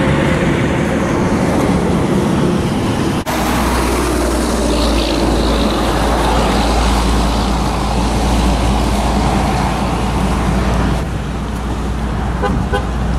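Steady outdoor wind and road-traffic noise, with gusts buffeting the microphone as a deep rumble from about three seconds in until near the end.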